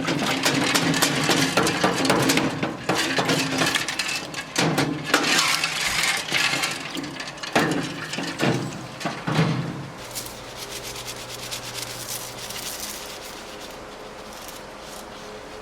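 Loose metal motorcycle spoke nipples clinking and rattling together as they are handled and dropped, a dense clatter for about ten seconds that then thins out to a few faint clicks.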